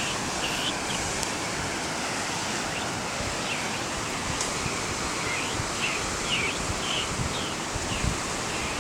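Steady rush of river rapids. Short high chirps come now and then, in a quick run in the second half.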